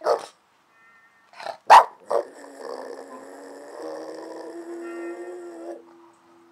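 Boston Terrier giving three short barks, then one long howl lasting about three and a half seconds, muzzle raised.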